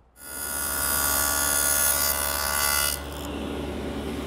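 Table saw with a stacked dado set cutting a test dado through a board for about three seconds. The sound then drops to a lower steady hum as the cut ends and the cutters spin on free.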